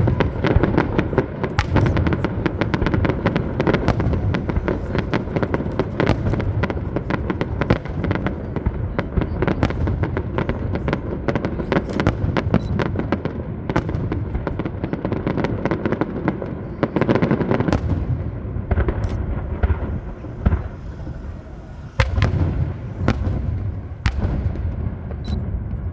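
A fireworks display: a dense, rapid barrage of bangs and crackles over a deep, continuous rumble of booms. A fresh volley breaks out sharply about four seconds before the end.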